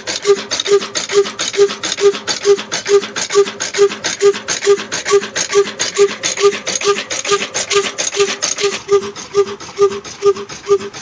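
Old Ruston slow-speed diesel engine with a large flywheel running, giving a steady, even exhaust beat about two to three times a second.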